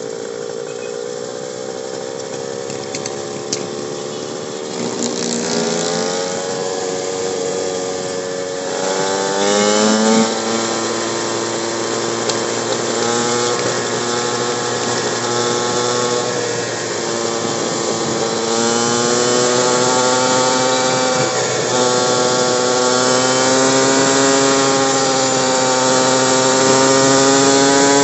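Motorcycle engine running while riding. Its pitch climbs, holds and drops several times as the throttle opens and closes.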